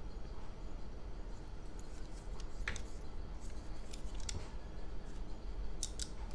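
Light metallic clicks from handling a stainless-steel rubber-band toy pistol's mechanism: one sharper click a little under three seconds in, a few more over the next second and a half, and two quick clicks near the end.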